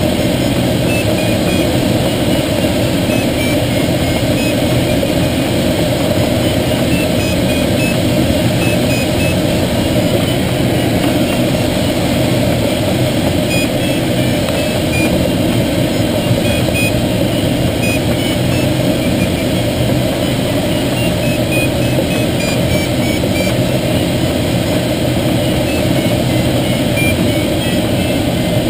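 Steady rush of air around the canopy of a Schweizer 1-34 glider on aerotow, mixed with the continuous drone of the tow plane's engine pulling it up.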